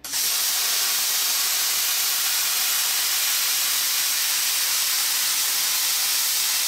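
Flame Weld 50-amp pilot-arc plasma cutter cutting through steel sheet: the arc and air jet start suddenly and run as a steady hiss.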